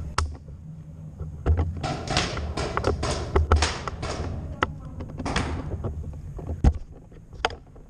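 Handling noise picked up by a camera mounted on a Tippmann paintball pistol: rustling and scraping against a low rumble, with many sharp clicks and knocks. The loudest is a single sharp click about two-thirds of the way in.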